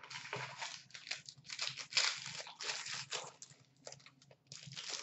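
A trading-card pack's wrapper being torn open and crinkled by hand, in irregular rustling bursts that are loudest around two seconds in.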